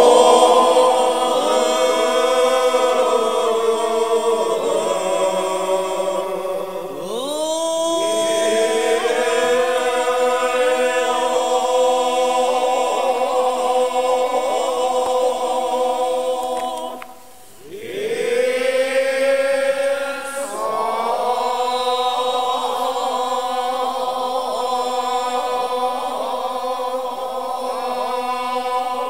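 A choir of Shingon Buddhist priests chanting shōmyō in long, sustained phrases, the voices slightly apart in pitch from one another so that the chant is heterophonic rather than unison. The phrases break for breath about 7 and 17 seconds in, each new phrase sliding up into its note.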